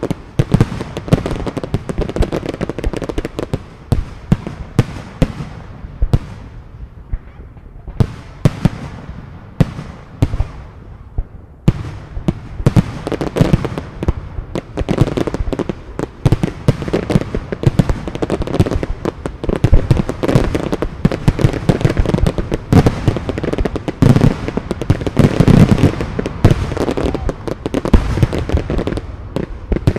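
Fireworks display: a rapid run of bangs from aerial shells bursting overhead, with crackling between them. The bangs thin out for a few seconds about a fifth of the way in, then come thick and fast again to the end.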